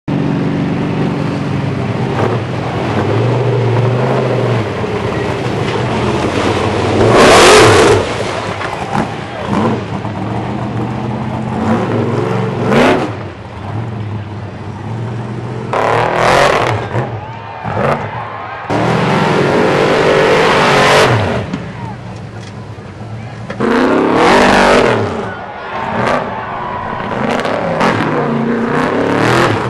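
Big-tyred mud bogger truck's engine running hard, revving up in several loud bursts, with its wheels spinning in mud.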